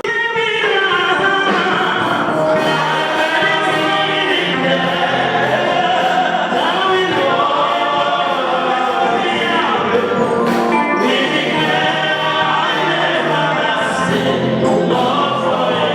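Gospel worship music with a choir of voices singing, loud and continuous.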